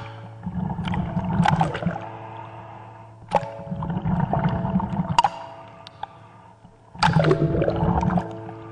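Water gurgling and sloshing around a camera at the water's surface, in three swells with sharp clicks, over a steady low drone.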